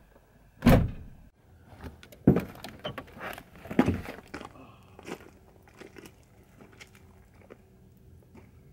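A few heavy thumps and knocks in the first four seconds, then light footsteps crunching on gravel.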